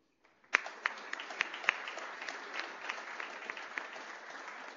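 Audience applauding. It starts suddenly about half a second in, with a few loud sharp claps standing out, then settles into steady, dense clapping.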